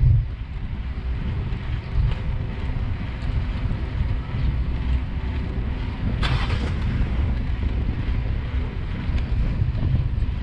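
Wind rumbling on the microphone of a camera on a moving bicycle, a steady low buffeting, with a brief hiss about six seconds in.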